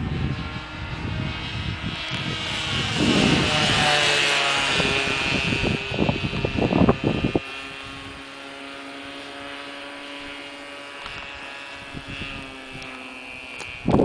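Remote-control model airplane's motor and propeller buzzing in flight, loudest and sweeping in pitch as it passes about four seconds in, then dropping to a fainter steady drone as it flies off. A few short low rumbles come in the first half.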